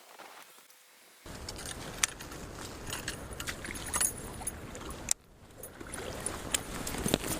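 Water sloshing and splashing with strong wind buffeting the microphone and scattered small clicks and rattles. It starts abruptly about a second in and drops out briefly about five seconds in.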